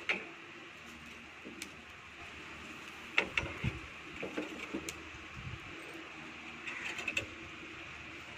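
Metal clicks and clanks of a hinged wire grilling basket being handled on a charcoal grill, with a few dull knocks. There is a burst of clatter about three seconds in and another cluster near the end.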